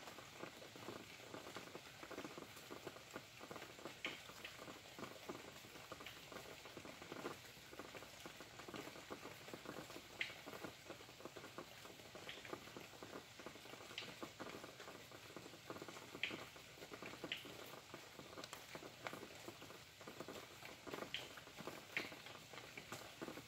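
Faint rain pattering, a dense irregular spatter of drops with a scattering of sharper, louder drip taps.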